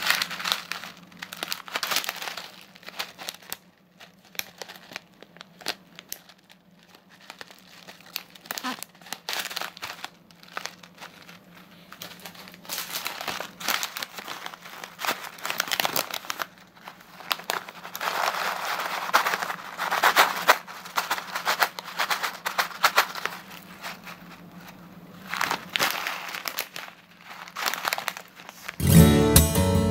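Plastic snack packets crinkling in irregular bursts as they are handled and one is opened, loudest about two-thirds through. Acoustic guitar music starts just before the end.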